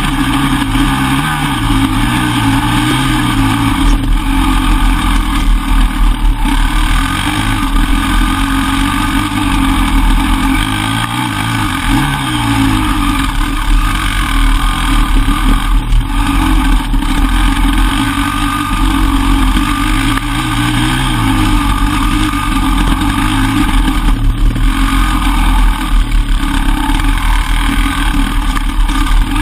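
Enduro dirt-bike engine running under way, its revs rising and falling again and again as the throttle is worked.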